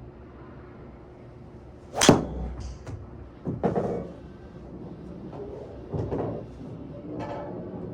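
Titleist TSR4 driver striking a golf ball: one sharp, bright crack about two seconds in. Three softer, duller knocks follow.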